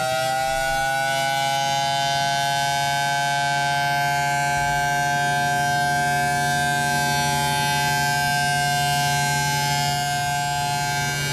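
Outdoor civil-defense tsunami warning siren with a large horn, sounding a steady, unbroken tone of several pitches at once: the alert that a tsunami is approaching.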